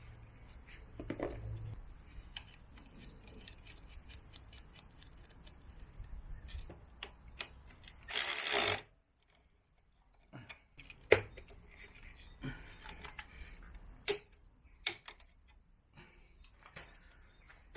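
Hand tools on motorcycle brake bolts: a ratchet and torque wrench clicking and knocking against metal in scattered, irregular clicks. There is a brief hiss about eight seconds in and one sharp, loud click about eleven seconds in.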